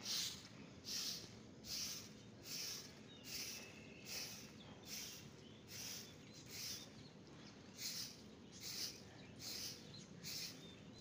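Stiff stick broom sweeping loose grit and small stone chips across a concrete roof slab, in regular swishing strokes about one a second.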